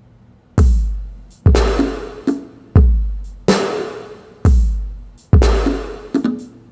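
Modern R&B drum-machine beat: deep bass-drum hits with long fading tails, alternating with sharper snare hits. The beat comes in about half a second in, after a brief gap.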